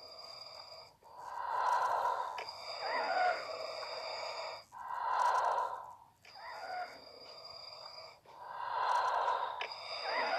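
Darth Vader's mechanical respirator breathing, slow and labored as he is dying: long hissing breaths in and out, about three cycles of roughly three and a half seconds each, with a steady high tone in alternate phases.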